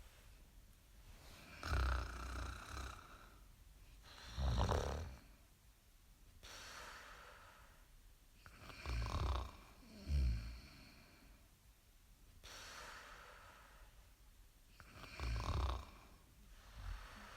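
Snoring: loud, low snores come in pairs roughly every six to seven seconds, with softer, breathy in-breaths between them.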